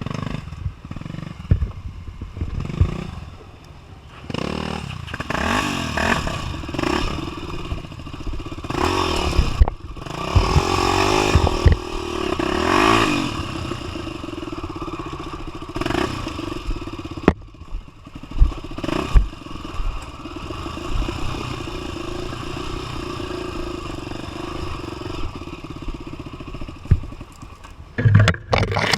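Dirt bike engine revving up and falling back again and again on a rough trail, with clattering knocks from the bike jolting over the ground.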